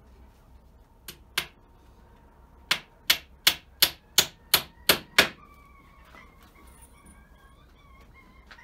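Hammer driving nails into the thin wooden slats of a coop door frame: two strikes, then a quick run of eight blows about three a second. A chicken calls in a series of short notes after the hammering stops.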